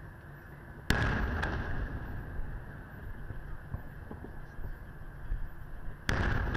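Aerial fireworks shells bursting: two sharp booms about five seconds apart, each trailing off in a rumble.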